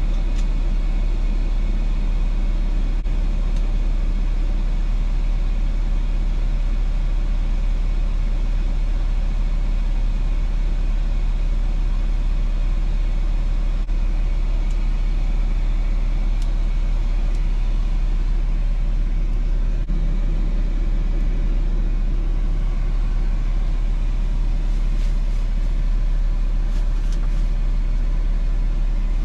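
Semi truck running: a steady, unbroken low rumble with no changes.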